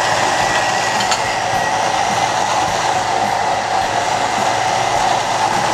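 Thermomix-style kitchen robot blending salmorejo of tomato, bread, garlic, oil and pitted cherries at maximum speed: a steady motor whir with a thin high whine.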